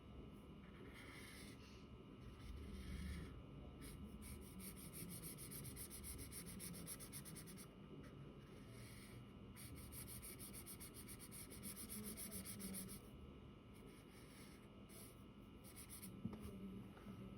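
Black sketch pen drawing on paper: faint scratching of outlining strokes, in several runs a few seconds long with short pauses between them.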